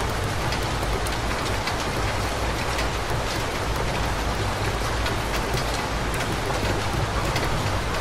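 Steady rain falling on a city street: an even hiss with many sharp drip ticks through it, over a low steady rumble.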